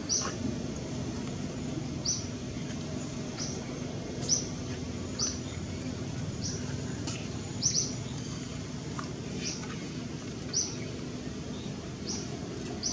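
A small bird chirping over and over, one short high chirp about every second, over a steady low background hum.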